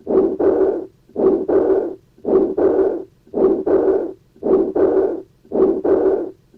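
Heart sounds heard through a stethoscope from a patient with combined aortic stenosis and aortic regurgitation: at each beat a harsh systolic murmur is followed closely by a diastolic murmur, a to-and-fro pair. The pair repeats evenly about once a second, six beats in all.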